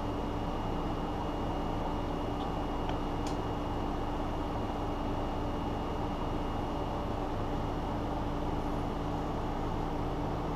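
Steady machine hum with a faint high whine running through it, and a few light ticks about three seconds in.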